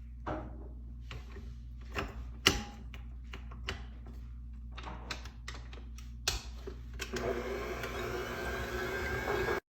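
Kitchen preparation sounds: utensils and containers knocking and clicking, the sharpest knock about two and a half seconds in. From about seven seconds a steady whirring noise runs, then cuts off suddenly just before the end.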